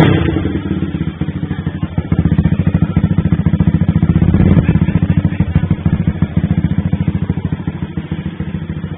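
Honda Sonic 125's single-cylinder four-stroke engine running with an even, rapid putter. The revs pick up about two seconds in and ease back down after about four and a half seconds.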